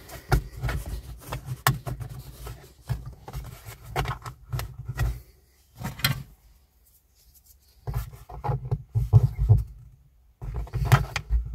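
Handling noise: hands rubbing and knocking on a smartphone held close to its microphone, with scraping and clicks from the plastic trim cover around a car's rear-view mirror. It comes in irregular bursts with a quiet pause about two thirds of the way through.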